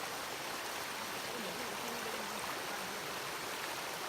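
Steady rushing of a waterfall and its stream, an even wash of water noise.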